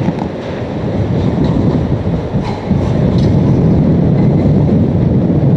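Hurricane-force wind blowing hard, a loud, low, steady rush buffeting the microphone, with a few faint clicks and rattles mixed in.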